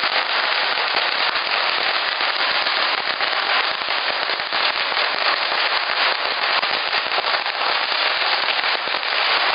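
A long string of firecrackers going off in a continuous, rapid crackle of bangs, a racket with no break.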